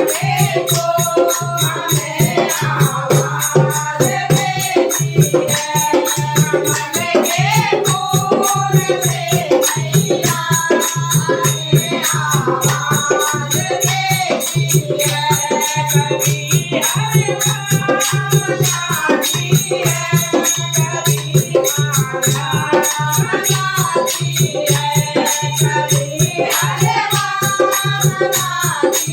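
A Hindi devotional bhajan: a voice sings gliding phrases over fast, steady rattling percussion and a held low drone.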